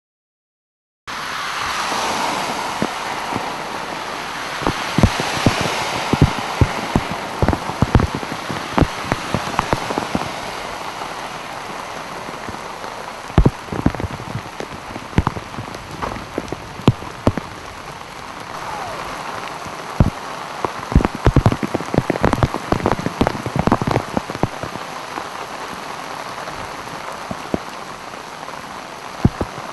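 Heavy rain falling on a flooded street: a steady hiss with many sharp taps scattered through it, starting after about a second of silence.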